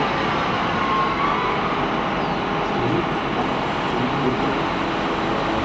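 Cat 966M wheel loader's diesel engine running steadily while its bucket tips a load of sand into a dump truck's bed.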